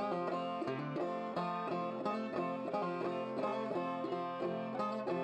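Background music: an old-time tune picked on banjo, a quick, even run of plucked notes.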